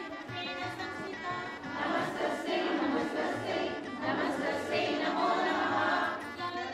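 A group of voices singing a devotional song together.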